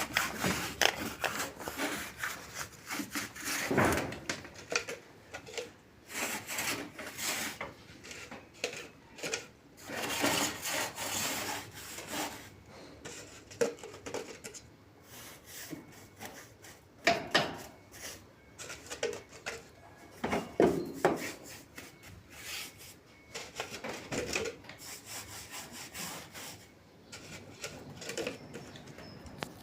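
Irregular scraping and rubbing strokes on wood, broken by a few louder knocks, typical of hand work on timber such as sawing or rasping.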